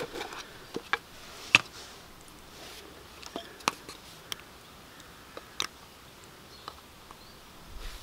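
Faint handling noises: scattered small clicks and taps of a caliper slider pin and a plastic tub of multi-purpose grease being handled while the pin is greased.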